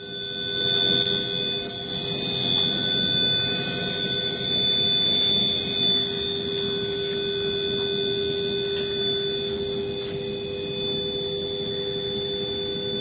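Two-drum brush sanding machine running steadily, a constant machine whine with several fixed tones over an even rushing noise.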